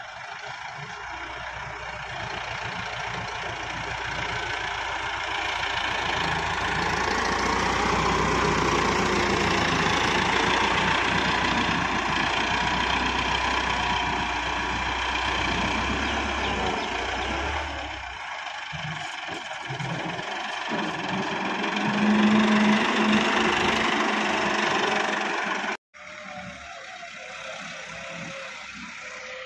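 Tractor diesel engine working under load as its front blade pushes soil. The engine note builds and stays loud, then breaks off abruptly near the end and carries on quieter and further off.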